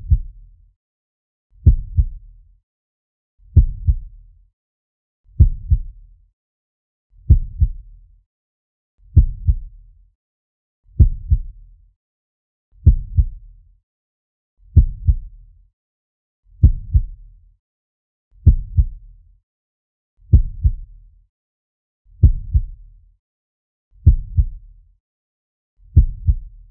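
Slow heartbeat sound effect: a steady, low double thump (lub-dub) about every two seconds, roughly 32 beats a minute, with quiet gaps between beats.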